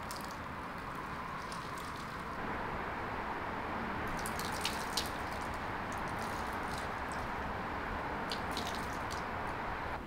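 Water poured from a plastic bottle trickling and splashing over a bunch of leafy greens as they are rinsed, with a few sharp drips and clicks, the loudest just before halfway.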